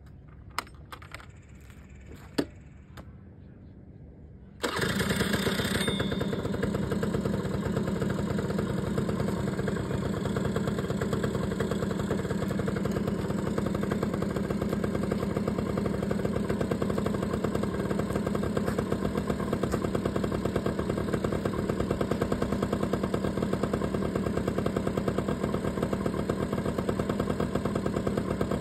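1991 Honda EZ90 Cub minibike engine started from cold: two sharp clicks, then about four and a half seconds in the engine catches and runs steadily.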